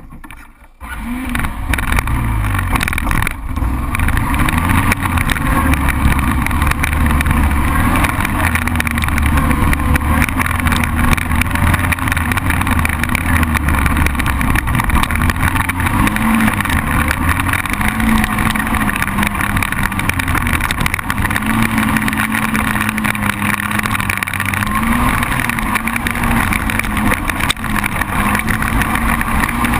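Single-cylinder ATV (quad) engine running close to the microphone, its pitch rising and falling again and again as the throttle is worked while riding, with wind and rattle noise. It comes in loud about a second in.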